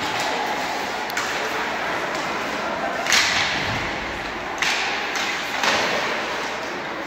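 Ice hockey play in an arena rink: skate blades scraping the ice and sticks and puck striking, four sharp scrapes or hits a second or two apart, the loudest about three seconds in, over a steady murmur of spectators.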